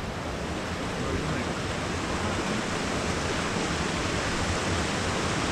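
Steady, unbroken rush of fast-flowing water, even across high and low pitches with a low rumble underneath.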